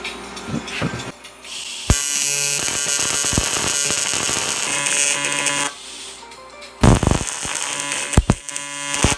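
TIG welding arc on cast bronze: a steady buzzing hiss that starts about two seconds in and stops after roughly four seconds, followed by a few short arc bursts near the end as the arm joint is tacked and welded.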